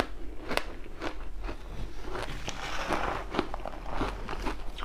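Crushed ice being bitten and chewed close to the microphone: a quick, irregular run of sharp crunches and crackles, thickest around the middle.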